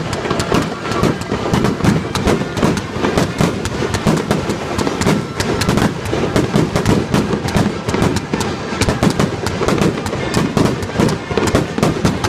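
Fireworks display: a dense, unbroken barrage of bangs and crackles, several shells bursting every second.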